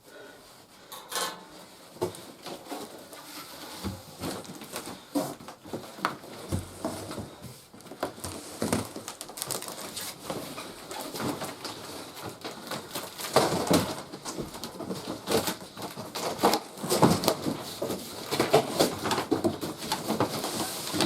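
Irregular rustling, scraping and knocking as a large cardboard toy box and its packaging are handled. The handling grows busier and louder about two thirds of the way through.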